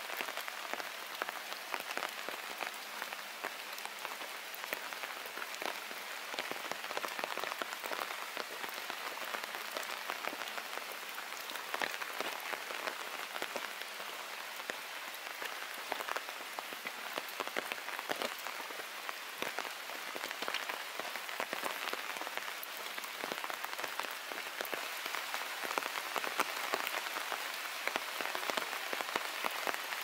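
Steady rain falling on the leaves of a broadleaf forest: an even hiss of many small drops ticking on foliage, with no lulls.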